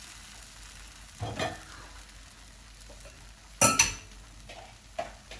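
Pandan kuih cara batter sizzling softly as it cooks in a hot metal mould, setting and forming a skin. Two brief knocks of a utensil or pan break in, the louder one about two-thirds of the way through.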